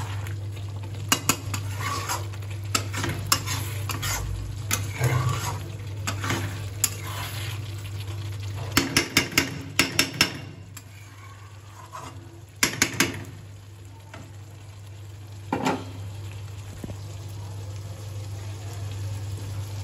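Metal spoon scraping and clanking against a steel kadai while stirring chicken curry, which sizzles and simmers in the pan. There is a quick run of clanks about halfway through, and the stirring tails off in the last few seconds, leaving the curry simmering over a low steady hum.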